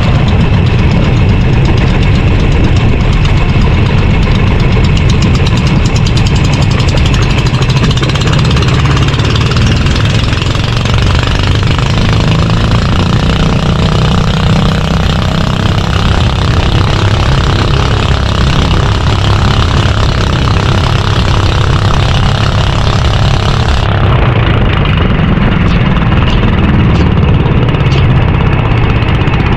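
Small fishing boat's engine running loud and steady, without a break.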